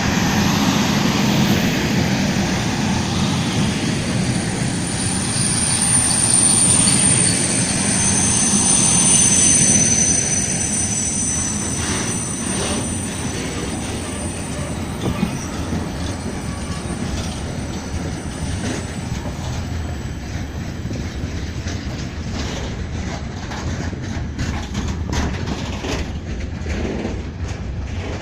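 Freight train of tank wagons hauled by a CD Cargo class 372 electric locomotive, rolling in with its brakes squealing really loudly. The high squeals are strongest for the first ten seconds or so, then fade, leaving the rumble of the wagons and the clack of wheels over rail joints.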